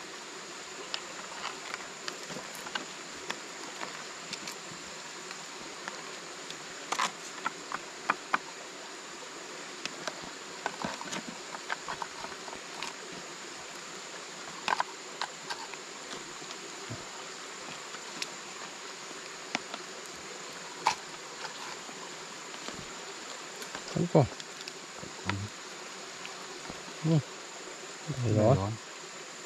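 Steady high-pitched drone of forest insects, with scattered sharp clicks and knocks and a couple of short voice sounds near the end.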